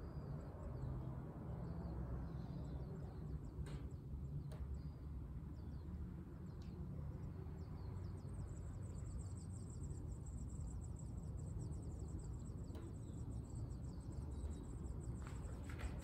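Faint, rapid high-pitched chirping of an insect such as a cricket, pulsing steadily from about halfway through, over a constant low background rumble. Near the end a quick run of sharp clicks begins.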